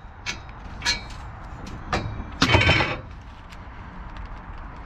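Metal bed frame being taken apart by hand: scattered clicks and clinks of the metal parts, with one louder clatter about two and a half seconds in.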